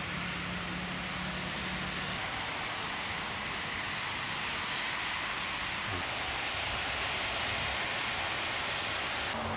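Steady hiss of rain falling, with a faint low hum underneath in the first couple of seconds.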